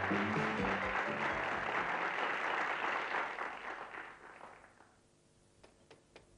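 Audience applause over background music, both fading out about four to five seconds in, followed by a few light clicks near the end.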